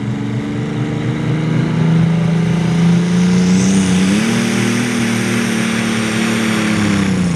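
Superstock pulling tractor's engine revving hard as it launches on its pull. The pitch steps up twice with a high whine over it, then drops off at the very end.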